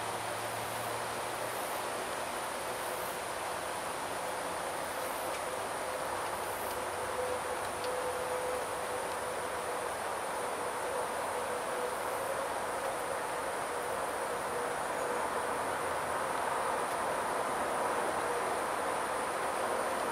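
Steady insect chorus, a constant high-pitched drone, over an even background hiss that grows slightly louder near the end.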